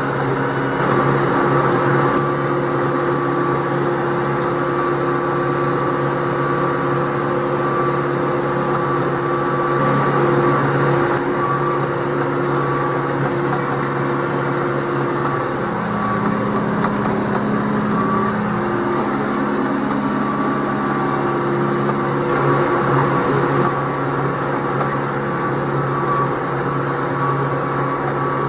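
Farm tractor engine running steadily, its note shifting for several seconds a little past the middle before settling back.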